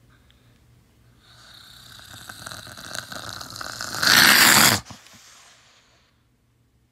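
A raspy, breathy vocal growl that grows louder over about three seconds, then breaks into a loud, harsh roar for under a second and cuts off.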